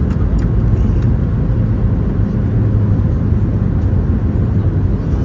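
Steady low rumble of cabin noise inside a Boeing 737 MAX 8 airliner.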